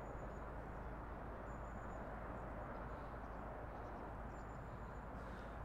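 Steady wind noise with a low rumble from wind on the microphone. Faint, thin, high-pitched bird notes come three times, each about half a second long.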